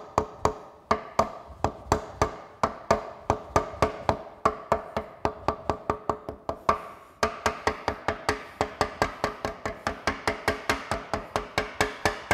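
Rapid, steady tapping of a soft-faced mallet on the rim of a wet cylinder liner in a diesel engine block, about five taps a second, each leaving a short metallic ring. The liner is being driven down through its second sealing O-ring, which takes some pressure and tapping to pass.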